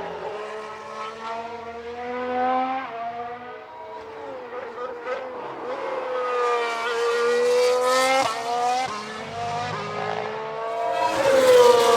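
2017 Formula 1 cars' 1.6-litre turbocharged V6 hybrid engines running on track. The pitch climbs through the gears with quick drops at each upshift, and the sound grows loudest near the end.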